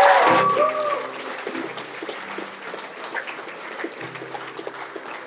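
Audience applauding, with a few voices calling out at the start; the clapping dies down after about a second to a lighter patter.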